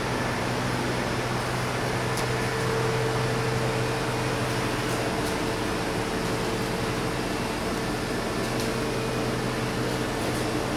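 Steady machinery hum of injection moulding machines running, with a constant low drone and a fainter mid-pitched tone over a wash of noise, plus a few faint ticks.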